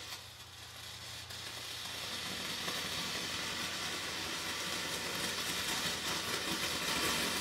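Sugar and perchloric acid burning in a metal spoon after torch ignition: a hissing flame that swells over the first couple of seconds and then burns steadily.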